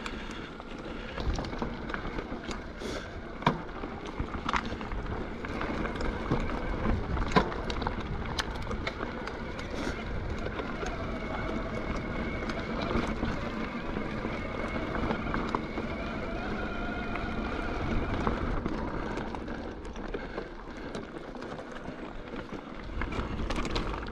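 Electric mountain bike descending a rough forest trail: tyres rumbling and crunching over gravel and rock, with frequent knocks and rattles from the bike over bumps.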